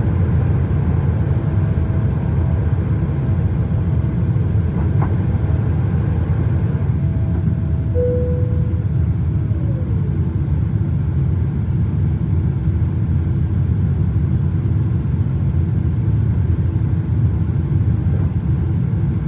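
Boeing 777-300ER's GE90 engines and airflow heard inside the cabin as a steady low roar during the climb after takeoff. Faint thin tones sound over it, and one brief tone comes about eight seconds in.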